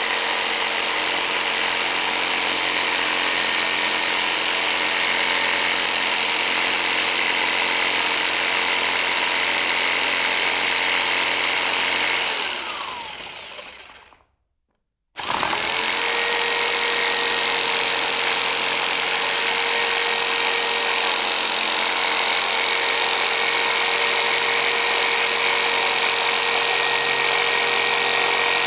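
Electric jigsaw motor running at steady speed. About twelve seconds in it is switched off and winds down with a falling pitch to a second of silence. It is then switched back on, spins up quickly and runs steadily again.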